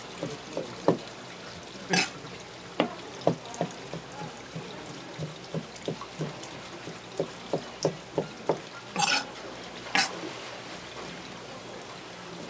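Kitchen knife slicing sea cucumber on a plastic cutting board: irregular knocks of the blade on the board, with three longer wet scrapes, about two seconds in and twice near the end.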